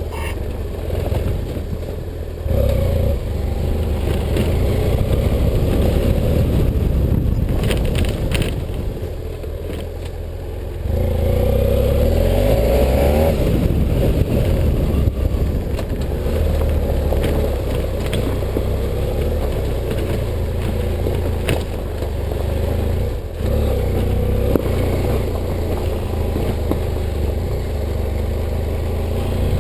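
BMW F800GS parallel-twin engine pulling the motorcycle along a rough dirt track, the throttle opening and closing, with occasional knocks from the wheels over stones. It eases off briefly, then gets louder about eleven seconds in.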